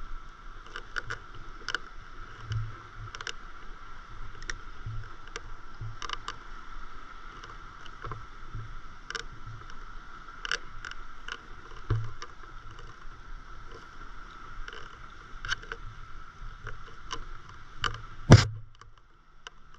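Small waves lapping and slapping against the hull of a stand-up paddleboard, heard as scattered light clicks and soft thuds over a steady high hum. One sharp, loud knock near the end.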